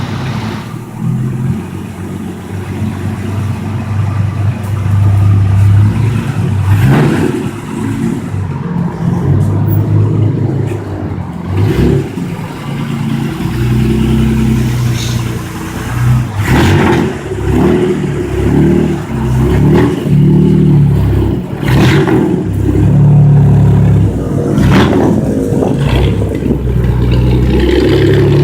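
Jeep Gladiator's Tornado inline-six running through a dual exhaust, fitted with 7.20 mm cams, idling and being revved in repeated throttle blips.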